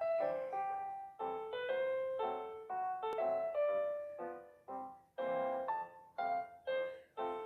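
Background music: a piano-like keyboard melody of single struck notes that each fade away.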